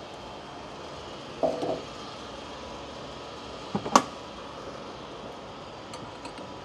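Handling a diesel pump nozzle and an excavator's fuel cap: a short knock that rings briefly about one and a half seconds in, then a sharp plastic-and-metal clack about four seconds in as the nozzle is lifted from the pump, and a few light taps near the end as it goes into the filler neck, over steady background noise.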